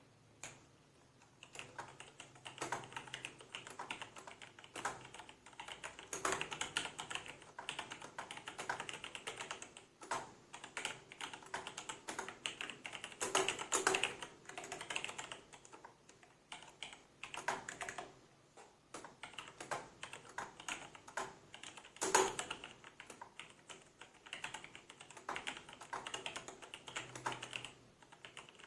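Mechanical keyboard being typed on: quick, uneven runs of key clicks with short pauses, and a louder strike, likely the space bar or a bottomed-out key, about twenty-two seconds in.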